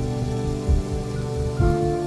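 Background music of slow, sustained chords, moving to a new chord about a second and a half in, with soft irregular low thuds beneath.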